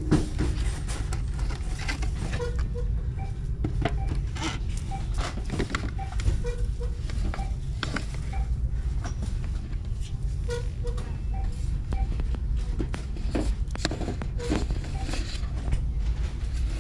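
Small Christmas gift mailboxes being handled and shifted on a metal store shelf, giving many short clicks and knocks over a steady low rumble.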